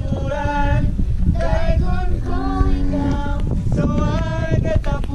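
Background music: a song with a sung vocal line over a steady beat.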